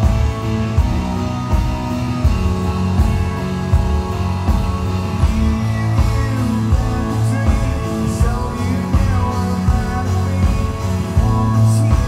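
A live rock band playing a mid-tempo song through a PA: strummed acoustic guitar with electric guitars and keyboard over a steady drum beat.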